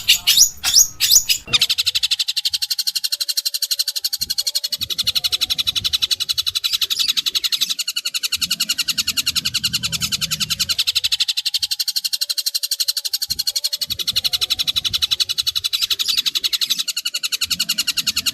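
Long-tailed shrike song-training recording: a harsh, rapid chattering of repeated rough notes, about six a second, running on without a break. About a second and a half in it takes over from a different, louder call.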